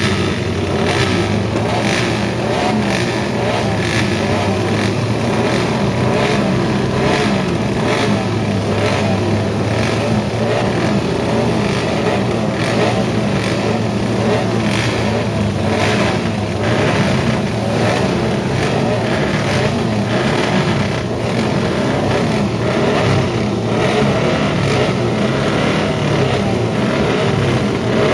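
Many classic racing motorcycles running and revving together: a steady mass of overlapping exhaust notes rising and falling, with frequent sharp exhaust cracks.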